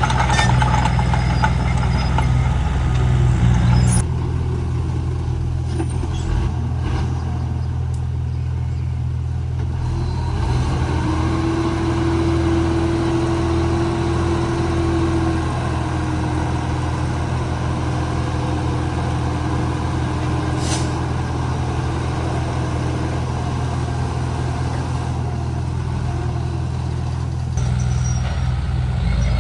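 Komatsu D31P bulldozer's diesel engine running steadily under work. It eases off about four seconds in and picks up again near the end, with a steady whine for a few seconds in the middle.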